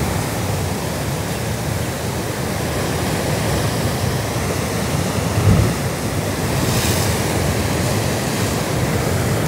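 Rough sea surf breaking and washing against rocks, a steady rush with wind on the microphone, and a brief low thump about five and a half seconds in.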